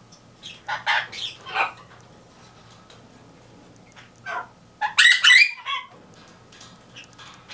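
Birds calling in short separate calls: a quick run of three about a second in, a single call near the four-second mark, and the loudest burst of calls about five seconds in, over a faint steady low hum.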